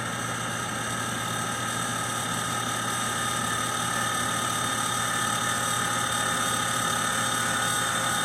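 Outdoor air-conditioner condenser unit running: a steady hum with a rattle over it. A high whine grows stronger about three seconds in.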